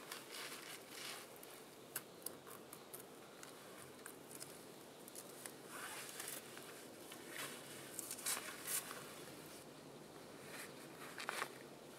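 Handling noise from rigging a canvas poncho shelter: soft rustling of the canvas and cord, with scattered small clicks and several short rasping pulls, the strongest of them a little past the middle. Near the end, rustling as a backpack is handled.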